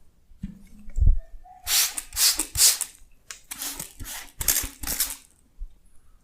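Hands rubbing close to the microphone in massage strokes: two groups of about three rasping strokes each, after a couple of soft thumps.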